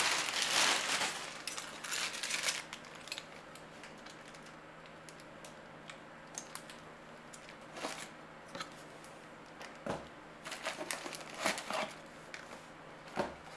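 Plastic bag crinkling for the first two and a half seconds as a new brake caliper is unwrapped, then a few light clicks and taps as the caliper is handled, and a cluster of cardboard rustles and clicks near the end as a box of brake pads is opened.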